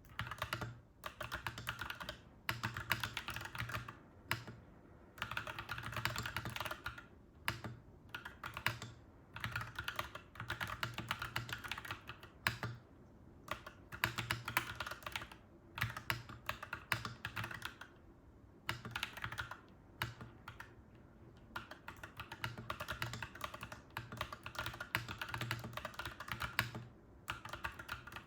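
Clacky mechanical keyboard being typed on in quick runs of keystrokes, each run lasting a second or a few, with short pauses between them.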